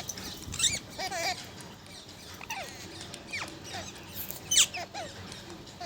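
Parrot calling: short warbling chirps and a few sharp downward-sliding squawks, the loudest about four and a half seconds in.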